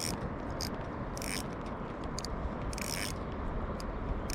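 Steady rushing noise with about six short scrapes and clicks scattered through.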